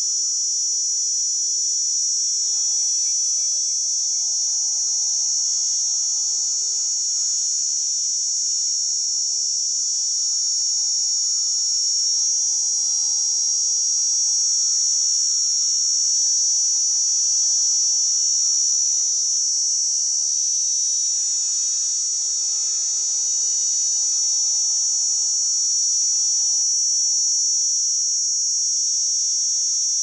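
Cicada singing: a continuous, steady, high-pitched buzz that holds at an even level without a break.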